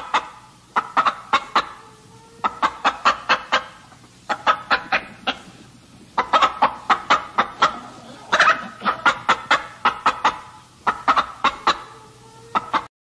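A chicken clucking in runs of short, quick clucks, about six runs with brief pauses between them.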